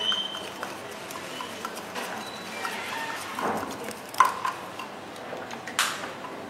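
Scattered clinks and knocks of a spoon, small glass jars and plastic bottles being handled on a tabletop, with the sharpest knock about four seconds in.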